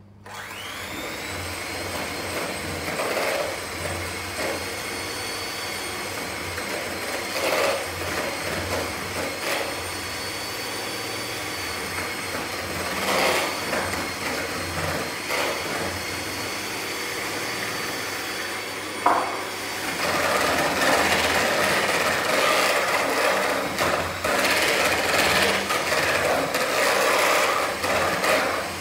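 Hand-held electric mixer switched on, its motor whining briefly up to speed and then running steadily while the beaters churn and scrape around the mixing bowl, beating eggs gradually into creamed butter and sugar for a cake batter. About twenty seconds in it gets louder and rougher.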